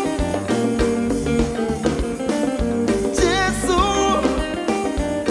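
A live band playing an upbeat African pop number, with drum kit and guitar and a short sung phrase about three seconds in.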